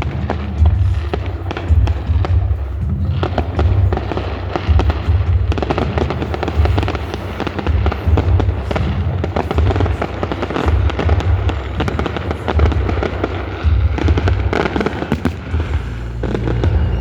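Firework display going off: a dense run of rapid crackles and sharp bangs over deep, repeated booms, busiest through the middle and easing off near the end.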